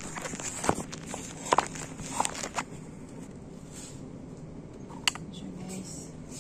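A phone being handled and set down: a quick run of knocks and clicks in the first few seconds, then one more sharp click about five seconds in, over a steady low hum.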